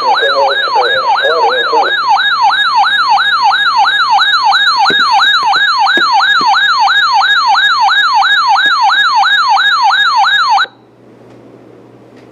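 Siren-style electronic alert tone sounding a severe thunderstorm warning on weather radio, warbling rapidly up and down about four times a second. It cuts off suddenly near the end, leaving a faint hiss from the radio channel.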